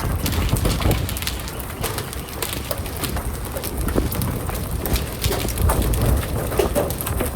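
Hailstones striking hard surfaces: dense, irregular sharp clicks and clatter over a steady low rush of storm noise.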